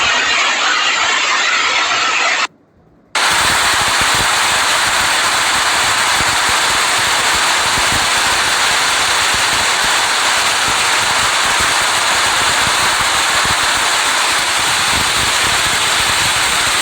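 Loud, steady rushing of water from flooding in a cyclone downpour. It cuts out for about half a second between two and three seconds in, then carries on evenly.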